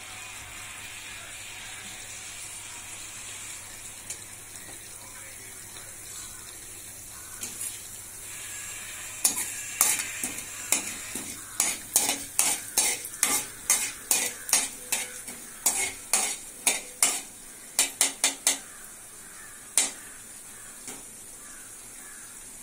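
Urad dal sizzling faintly in a little hot oil in a kadai. From about nine seconds in, a steel ladle stirs it, clinking against the pan about twice a second for roughly ten seconds, with one last clink shortly after.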